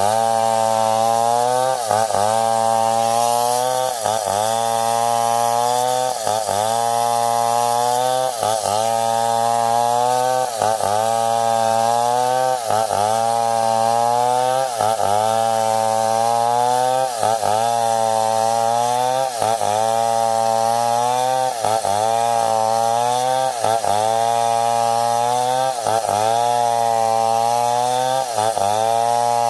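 Stihl 070 two-stroke chainsaw running hard in a cut. Its pitch dips briefly and recovers about every two seconds as the engine bogs under load and picks up again.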